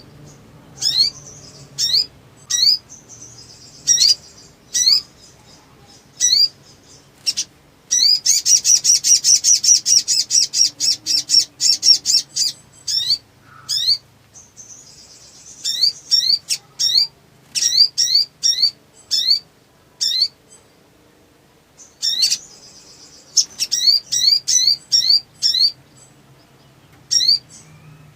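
Sunbird calling: a series of sharp, high rising chirps, with a dense rapid trill about eight seconds in and quick runs of chirps later.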